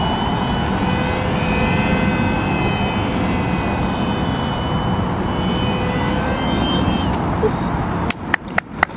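Electric radio-controlled model airplane's motor whining steadily over wind rumble on the microphone, then a few sharp hand claps near the end.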